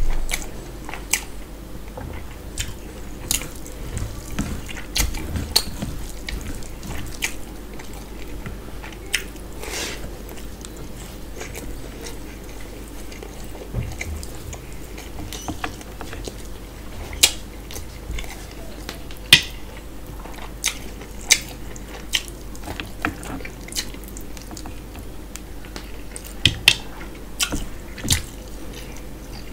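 Close-up eating by hand: wet chewing and lip smacks, with fingers squishing rice into mutton curry, heard as sharp, irregular sticky clicks over a low steady hum.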